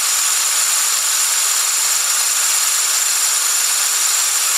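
Compressed air at about 3.8 litres a minute jetting through a 1.6 mm nozzle into a venturi tube and onto a small fan blade: a steady, high hiss.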